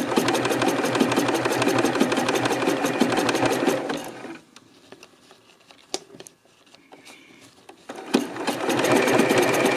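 Home sewing machine stitching a three-step zigzag, needle strokes in a fast even run for about four seconds. It stops, a single click sounds during the pause, and the machine starts stitching again near the end.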